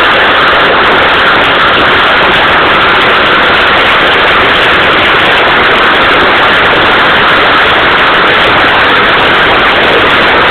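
Hailstorm: hail and heavy rain falling hard, a loud, steady, unbroken noise of countless impacts.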